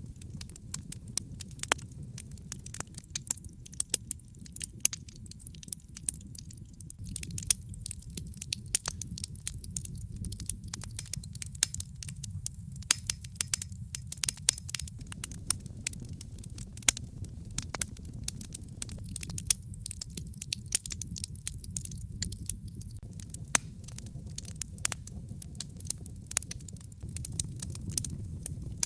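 Wood fire burning in a fireplace: irregular sharp crackles and pops from the burning logs over a steady low rumble of the flames.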